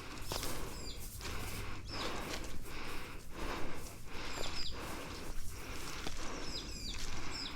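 Walking footsteps through rustling ground cover at a steady pace, about a step and a half a second, with a small bird chirping repeatedly in short high notes.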